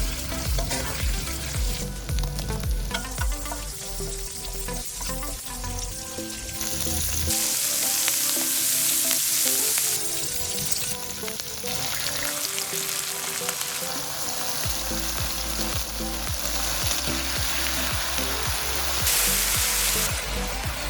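Food frying in a pan with a steady sizzle, which swells loud twice, about seven seconds in and again near the end. Background music with a beating bass runs underneath.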